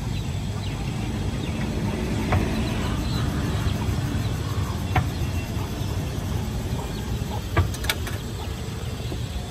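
Outdoor street ambience: a steady low rumble of traffic, with a few sharp light clicks and knocks scattered through it.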